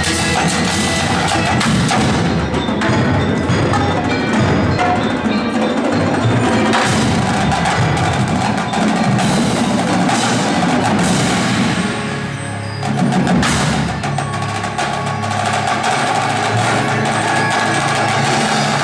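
Indoor percussion ensemble playing: marimbas and other mallet keyboards together with marching snare, tenor and bass drums. The sound dips briefly about two-thirds of the way through, then comes back in full.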